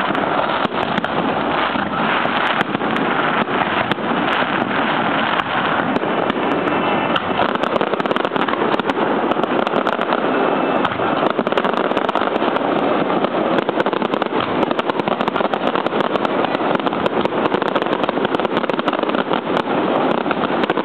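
Fireworks display with a dense, continuous barrage of bangs and crackles, many per second, with no let-up.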